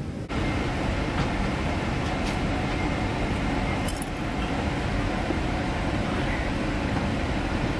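Steady cabin noise of an airliner in flight: a dense, even rush with a deep rumble underneath, broken only by a couple of faint clicks.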